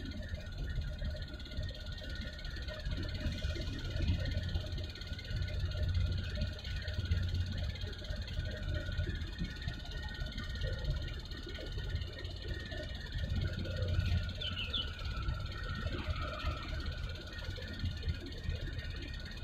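Steady low rumble with faint higher droning tones from a large container ship's machinery as it passes close alongside.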